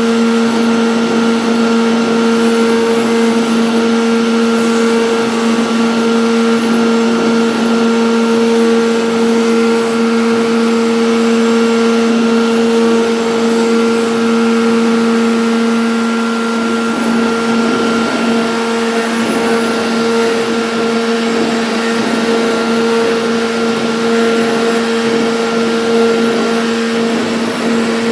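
CNC router spindle running at a steady speed with a constant motor whine and cutting noise, carving a name board.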